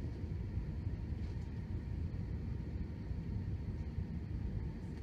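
Steady low rumble inside the passenger cabin of an Airbus A320-232 on approach to land: its IAE V2500 engines and the rush of air over the airframe.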